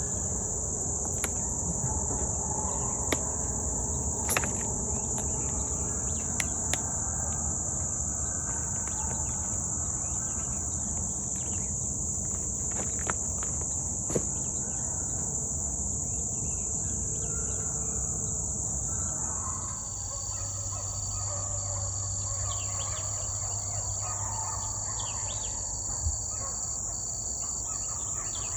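Steady, high-pitched drone of insects such as crickets, holding one pitch throughout, over a low background rumble with a few faint clicks. About two-thirds of the way through, a low steady hum comes in underneath.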